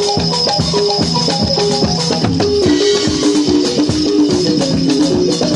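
Background music with a steady percussion beat and a repeating melody of short notes. The melody changes to a lower phrase about two and a half seconds in.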